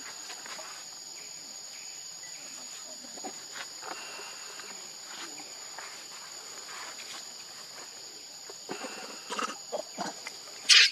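Insects drone steadily at a high pitch, with scattered faint rustles. Near the end comes one loud, short shriek from a macaque.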